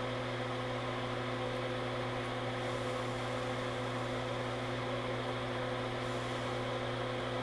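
Steady machine hum with a few fixed low tones over a light hiss, unchanging throughout.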